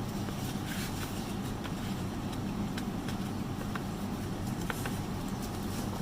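Sparse, irregular light clicks and taps from things being handled, about one every second, over a steady low hum.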